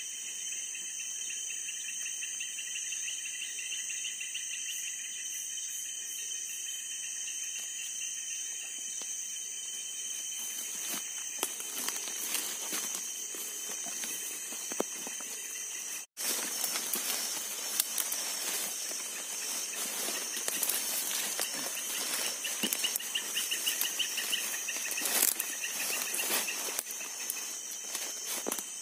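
Steady high-pitched chorus of night insects, with a pulsing trill among them. From about ten seconds in, close rustling and clicking of movement through wet undergrowth joins in; it cuts out for an instant midway and then comes back louder.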